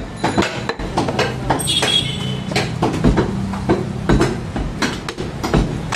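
A large butcher's knife striking a wooden chopping block again and again while meat is cut, in sharp irregular knocks about two a second. A steady low hum runs underneath.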